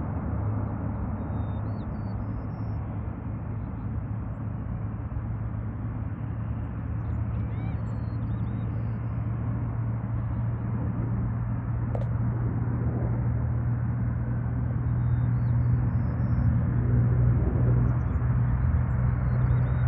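HC-130J Combat King II's four Rolls-Royce AE 2100 turboprops at takeoff power during the takeoff roll: a steady low propeller drone that grows louder over the last few seconds as the aircraft lifts off and draws nearer.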